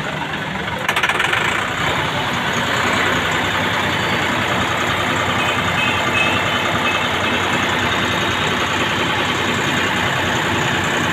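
Massey Ferguson 260 Turbo tractor's three-cylinder turbocharged diesel engine running, picking up about a second in and again about three seconds in as it is given some throttle, then holding a steady raised speed.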